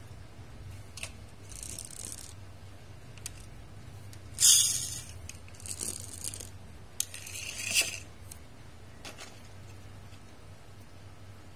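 Small toy cars being handled and run along a hard table top: short raspy bursts of wheels scraping and whirring, the loudest about four and a half seconds in and two more near six and eight seconds, with a few light clicks of the cars being set down.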